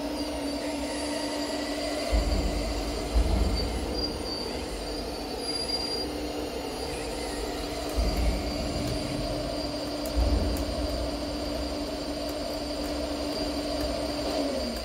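Electric-driven hydraulic pump of a radio-controlled Liebherr 954 model excavator whining steadily as the boom and bucket move, with a few low thumps as the bucket works the dirt and stones. The whine drops in pitch near the end.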